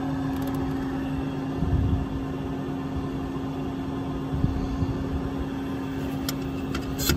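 Ford F550 bucket truck's 6.7 Power Stroke diesel running at idle, a steady drone with an even hum. A couple of light clicks come near the end.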